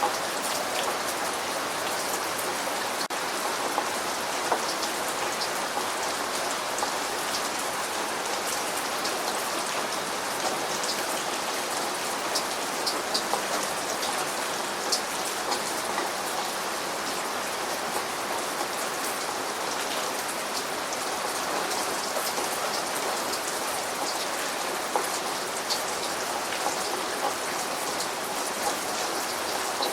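Steady rain falling, a constant hiss with many separate drops ticking sharply on a surface.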